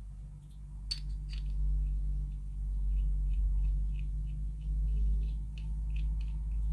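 Small metal pipe parts clicking together in the fingers: two sharp clinks about a second in, then a run of faint ticks as the parts are turned, over a steady low hum.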